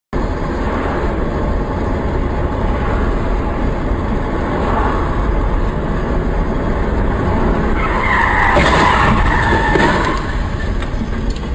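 Steady road and engine noise from a moving car heard through a dashcam, with tyres squealing in a skid from about eight to ten seconds in.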